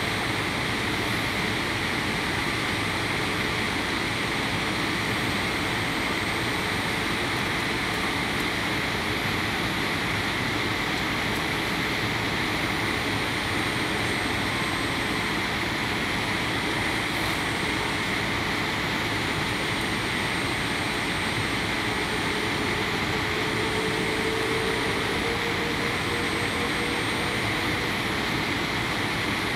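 Boeing 787 Dreamliner cabin noise heard from a window seat over the wing: the steady rush of the turbofan engines and airflow on the approach descent.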